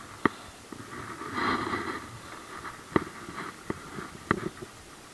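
Hands handling a light spinning rod and reel: about five sharp clicks and knocks, the loudest near the start and about three seconds in, with a short rustle between them.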